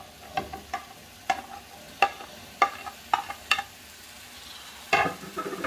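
Diced raw potatoes being scraped off a ceramic plate into a pan of hot oil with a plastic slotted spatula: a string of sharp taps of spatula on plate and pan, then a louder clatter near the end, over a faint sizzle as the potatoes start to stir-fry.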